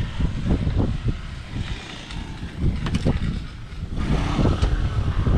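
Uneven low rumble of camera handling and wind on the microphone while climbing aboard a boat on its trailer, with a few sharp knocks about three seconds in as hands and feet meet the hull.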